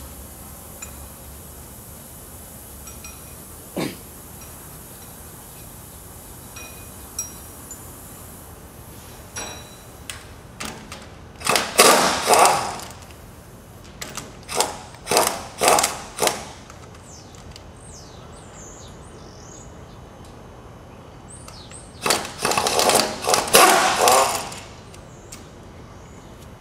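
Impact wrench hammering in several short bursts of rapid blows, the longest about two seconds, around the middle and again near the end, as it works the nuts on the bolts that hold a hydraulic shear's lower blade.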